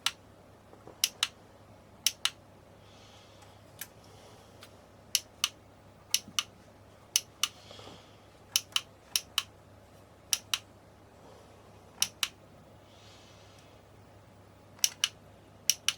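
Sharp clicks of small plastic and metal parts being handled and fitted as an LED camping light's casing is put back together and screwed up. The clicks come mostly in quick pairs, a dozen or so times with irregular gaps, with faint rubbing between them.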